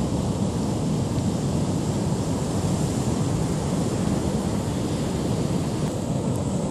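Pacific storm surf breaking heavily on rocks and shore, a continuous, steady noise of waves, with wind buffeting the microphone.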